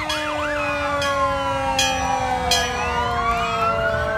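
Fire engine sirens sounding close by. One siren holds a long tone that slowly falls in pitch, and another sweeps up and down over it.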